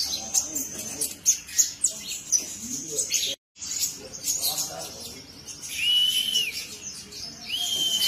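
Purple-throated sunbird ('kolibri ninja') singing in a cage: a quick run of high, sharp chirps and ticks, then near the end two clear arched whistles about a second and a half apart.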